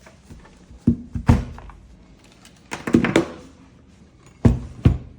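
Several dull thuds of portable tire pumps being set down on a hard surface: two about a second in, a cluster around three seconds, and two more near the end.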